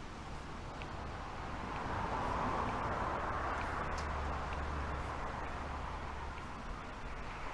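Road traffic going past: vehicle noise that swells for a few seconds and then eases off, over a low steady rumble.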